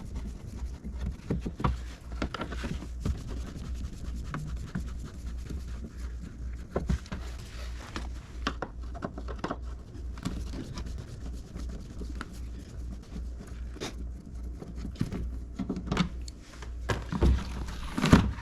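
Hand work with a Phillips screwdriver on a car door's inner metal: scattered clicks, taps and rubbing as the door speaker's screws are taken out and the speaker is handled, with a louder clunk near the end.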